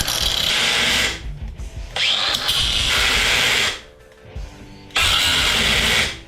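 Battery-powered cut-off saw spinning up and cutting scrap metal in three loud bursts with short pauses between, one starting with a rising whine; its battery is running low, the operator thinks.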